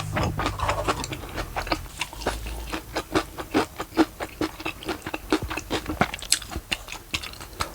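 A person chewing food close to the microphone, with steady wet crunching and clicking mouth sounds, about three to four chews a second.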